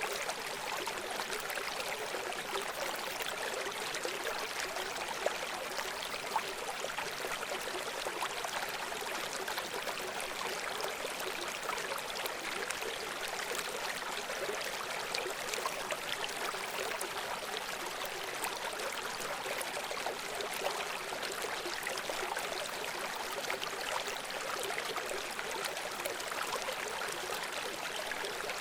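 A shallow river running over rocks: a steady, dense rush of water with fine splashing and gurgling.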